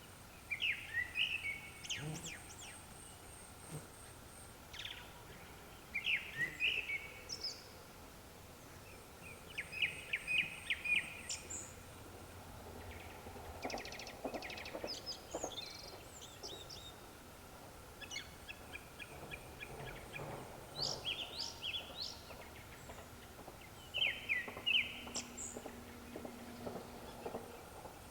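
Japanese thrush singing: about six short phrases of whistled notes and rapid trills, each a second or two long and a few seconds apart. A faint steady high tone runs underneath.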